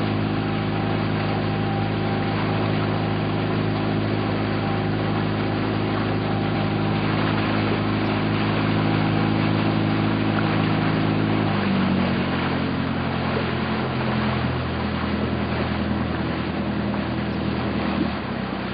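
Inboard engine of a small wooden river boat running steadily over a rushing hiss. About two-thirds of the way through its note drops lower as the engine slows.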